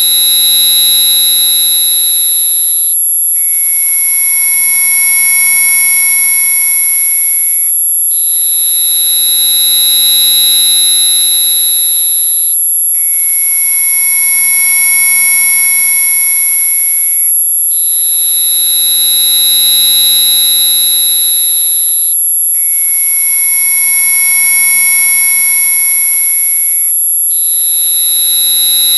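Synthesized mosquito-repellent tone track: several steady high-pitched electronic tones sound together, with the strongest near the top of hearing. The tones switch between two sets of pitches about every five seconds, with a short break at each change.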